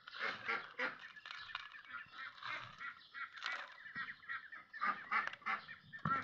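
Domestic fowl calling over and over in short honking calls.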